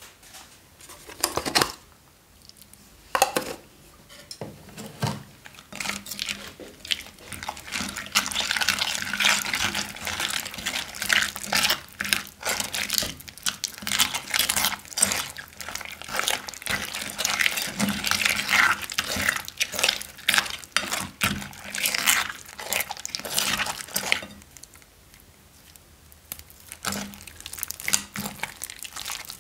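Hands mixing wet slime with glitter and beads in a glass dish: squishing and crackling. A few separate sharp sounds come first, then a long dense stretch of crackly squelching that quietens near the end.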